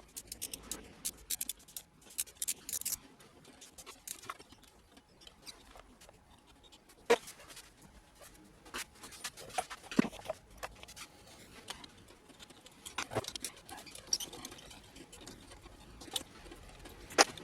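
Hand tools and metal parts of an electric lawn mower motor clicking, scraping and knocking during disassembly. Scattered small clicks throughout, with a few sharper single knocks about seven, ten, thirteen and seventeen seconds in.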